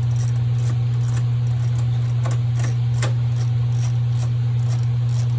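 A steady low hum, with scattered light clicks and metallic rattles from small parts and tools being handled.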